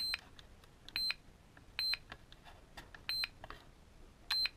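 HobbyKing ECO6 balance charger beeping at its button presses: five short, high beeps, irregularly spaced about a second apart, as the settings are stepped through.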